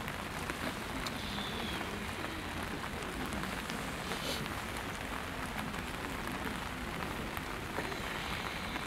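Steady rain falling, an even hiss scattered with the fine ticks of individual drops.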